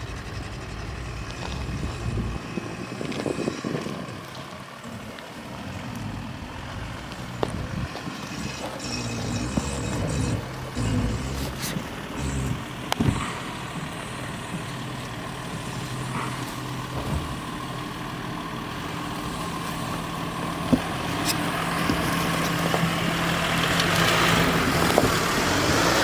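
Volkswagen Touareg's V6 TDI diesel engine running as the SUV drives off-road, with scattered sharp knocks and clicks. A broad hiss swells near the end.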